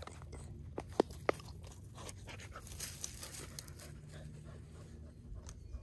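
A dog nosing and stepping through grass and dry leaves close to the microphone, with three sharp clicks about a second in.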